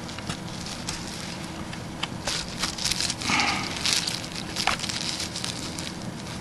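Clear plastic wrapping crinkling and rustling in irregular spurts as a hand works a bundle of thin firework sticks out of it, with small clicks.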